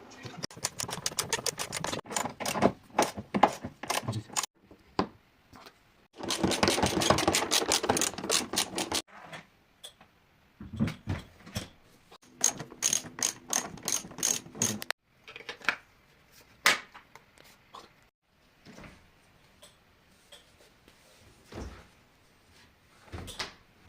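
Ratchet tool clicking fast in three long bursts while undoing the hinge fasteners on a refrigerator door, with scattered single knocks and clacks of parts being handled in between.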